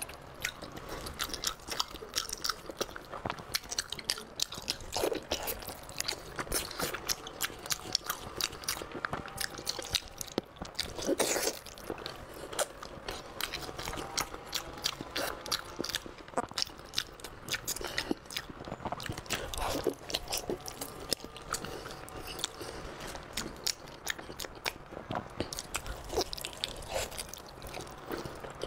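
A person biting and chewing glazed braised pork trotter close to the microphone: a dense, continuous run of sharp mouth clicks and smacks.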